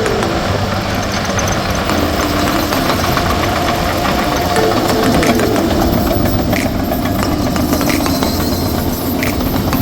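Diesel engine of heavy earthmoving machinery (excavator, bulldozer or compactor) running steadily while working.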